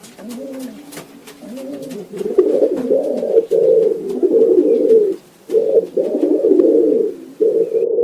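Several pigeons cooing, their low rolling coos overlapping continuously and growing louder partway through, with a few sharp clicks in the first couple of seconds.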